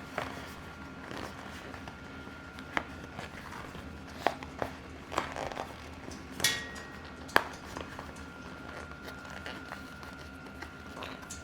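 Mountain bike tire, foam tire insert and rim being worked by hand: a few scattered sharp clicks and taps with short rubbing noises between them.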